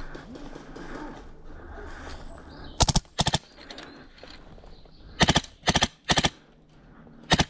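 MTW Wolverine HPA airsoft rifle firing short bursts of rapid shots, six bursts starting about three seconds in.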